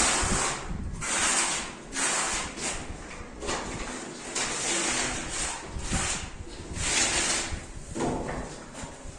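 Rough scraping strokes repeated about once a second, a hand tool worked back and forth over a hard surface.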